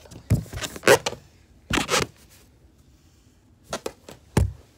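About half a dozen short rustles and scrapes of clothing and of a phone being handled close to its microphone, with quiet gaps between them. The loudest comes about a second in.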